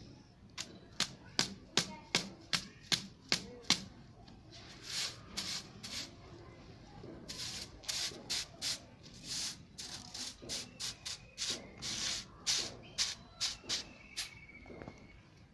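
A short grass hand broom swept across a bare concrete floor: a run of quick, sharp swishes about three a second, then slower, longer strokes.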